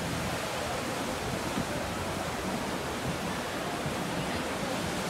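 Small waves washing on a beach in a steady hiss, with faint chatter of beachgoers behind it.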